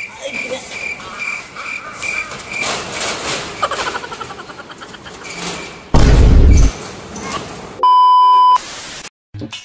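Edited-in sound effects: a high beep repeating quickly, about two to three times a second, for the first couple of seconds, then a loud low boom about six seconds in. Near the end comes a steady test-pattern beep with the colour bars, cut off by a brief hiss of static.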